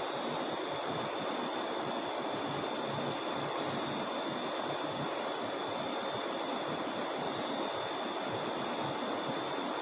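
Steady rush of river water running high after a flood, even and unbroken, with a thin steady high-pitched tone over it.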